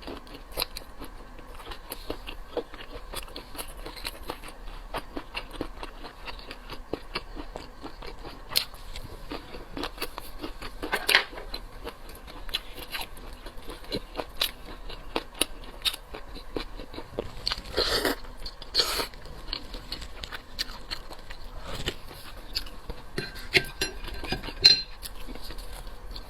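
Close-miked eating of cooked seafood: steady biting, chewing and crunching, with many small clicks and a few louder ones about 11 and 18 seconds in.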